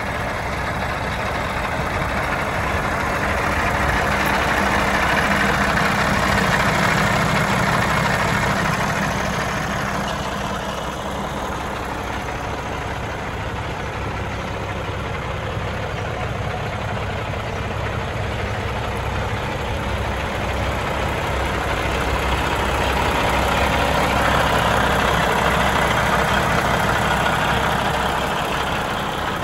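Heavy-truck Cummins diesel engine idling steadily with the hood open, growing louder for a few seconds twice, about a quarter of the way in and near the end.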